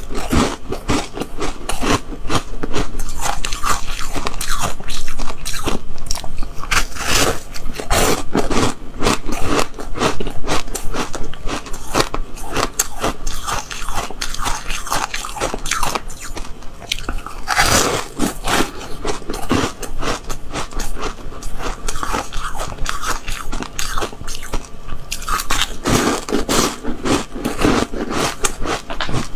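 A person biting and chewing a block of frozen pink milk ice: repeated crunching and crackling bites and chews, close to the microphone, with the heaviest crunches about 7, 18 and 26 seconds in.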